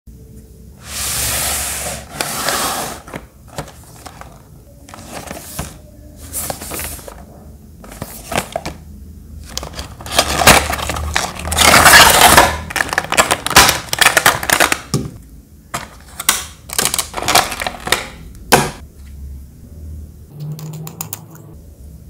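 Cardboard packaging and a clear plastic blister tray being handled and slid out of a box: irregular bursts of sliding, rustling and crinkling, with sharp clicks and taps of small plastic parts.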